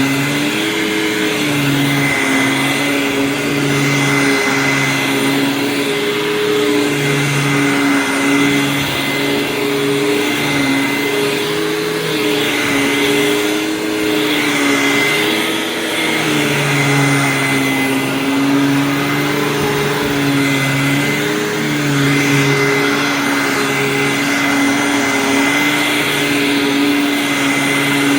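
Hoover WindTunnel Supreme upright vacuum cleaner running steadily, its motor pitch wavering slowly up and down.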